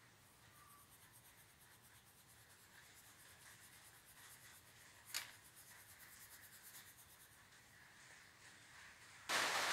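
Steel wool rubbed back and forth over a padlock's metal body in polishing, a faint quick scratching in even strokes, with one sharp click about five seconds in. Near the end a much louder steady hiss cuts in suddenly.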